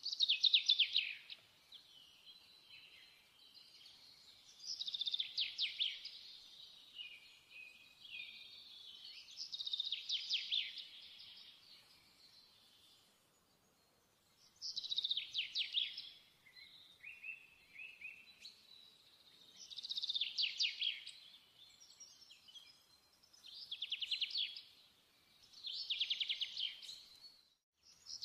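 A songbird singing short, rapid trilled phrases, one about every four to five seconds.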